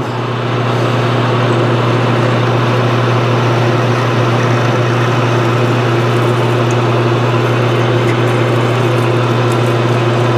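Metal lathe running steadily with a drill bit boring a hole through the spinning workpiece: a loud, even motor hum under a constant cutting hiss.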